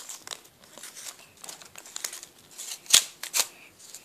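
A folded sheet of A4 paper being torn and handled: crisp rustling and small tearing sounds, with the loudest, sharp sound about three seconds in and another just after.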